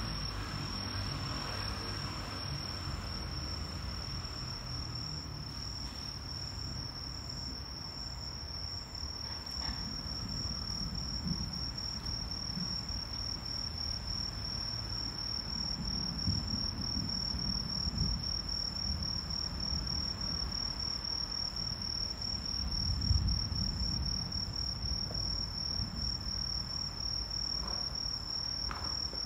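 Insects trilling in one steady, high-pitched note, with a low rumble underneath that swells a few times and is strongest about two-thirds of the way through.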